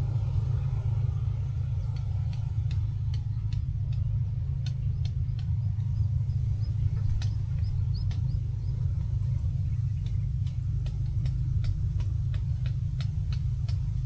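Steady low wind rumble on the microphone, with scattered faint high ticks and a few short chirps about five to eight seconds in.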